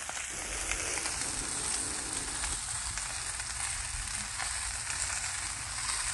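Ribeye steaks sizzling steadily on a hot Blackstone flat-top griddle, with scattered small pops of fat.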